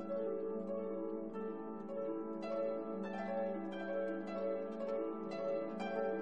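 Instrumental background music: a flowing run of plucked string notes over a held low tone.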